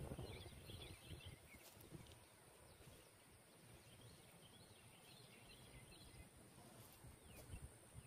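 Near silence: quiet outdoor ambience with a few faint, high chirps scattered through it.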